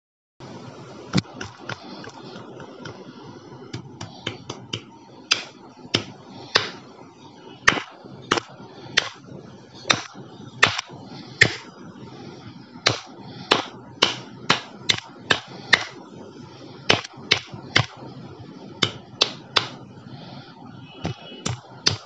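Hands making a long, irregular series of sharp slaps and clicks against each other, about one to two a second, over a steady background noise that starts about half a second in.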